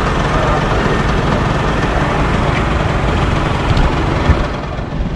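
Steady street traffic noise: passing motorcycles, three-wheelers and cars with their engines running, the noise easing off a little near the end.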